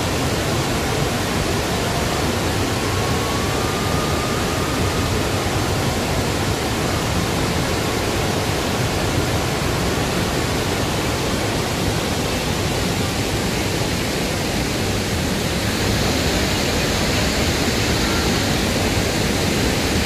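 Bou Sra waterfall in full muddy flood, its water rushing in a loud, steady roar with no let-up.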